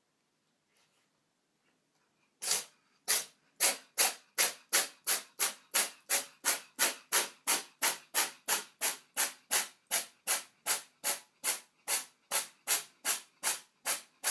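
Near silence, then a few seconds in a steady, regular series of short hissing puffs, about two and a half a second.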